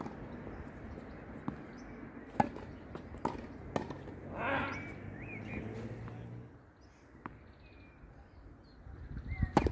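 Tennis ball struck by rackets and bouncing during a doubles rally: a handful of sharp pops, the loudest about two and a half seconds in. Then a quieter lull with birds chirping, and more hits and footsteps near the end.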